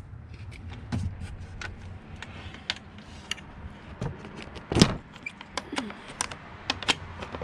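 A hen pecking up soaked mealworms: an irregular run of short, sharp taps and clicks, the loudest a little before five seconds in.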